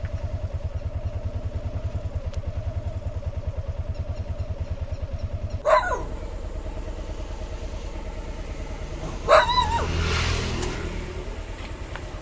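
A small engine idling with a steady, fast pulsing beat, and a dog giving two short barks, about six and nine seconds in.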